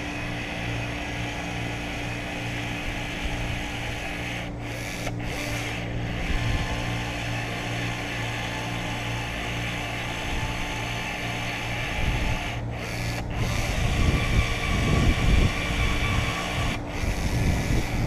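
Powered caulking gun running steadily as it lays a urethane bead for a windshield, stopping briefly a few times, with louder knocks and handling bumps in the last few seconds.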